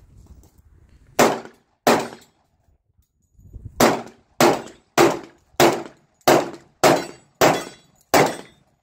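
Semi-automatic pistol firing ten shots: a pair about a second in, then after a pause a steady string of eight, a little under two shots a second.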